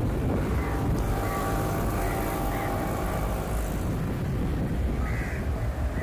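Steady low rumble of city traffic, with a few short bird calls over it, about four spread through the few seconds.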